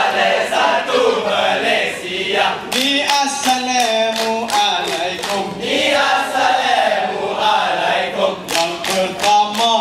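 Dikir barat: a seated troupe chanting a Malay song together in unison, with sharp claps cutting in about three seconds in and again near the end.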